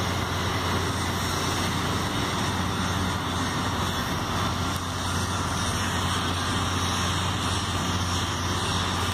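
Steady low machine hum under an even rushing noise, with no change in level and no distinct events.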